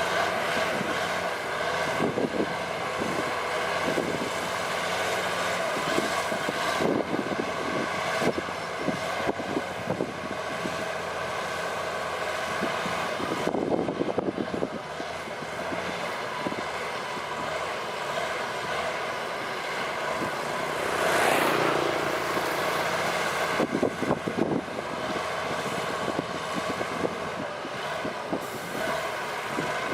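Heavy diesel road-construction machinery (motor grader and road roller) running steadily, with repeated short clanks and knocks over the first half and a brief loud rush of noise about twenty seconds in.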